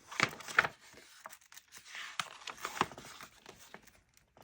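Paper rustling and crinkling as a book's pages are handled and turned, with a few sharp clicks, the loudest in the first second.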